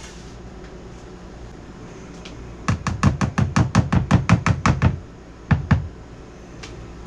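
A quick run of sharp knocks, about eight a second for two seconds, then two more knocks a moment later.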